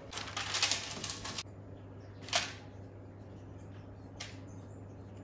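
A kitchen utensil scraping batter around a mixing bowl for about a second and a half, then two sharp knocks, the second fainter.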